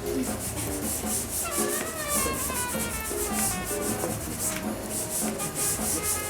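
Dry pastel sticks scraping and rubbing across gritty primed pastel paper in quick repeated strokes.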